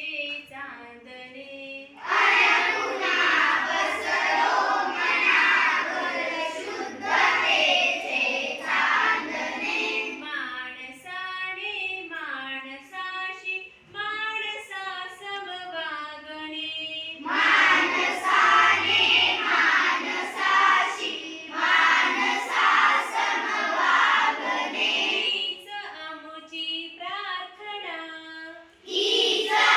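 A class of schoolchildren singing a song together in unison, in turns with a single voice that sings the lines alone, as in call and response.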